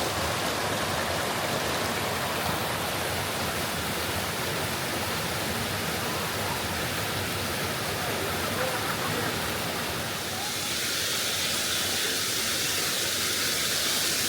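Steady rush of flowing water, turning brighter and hissier about ten seconds in.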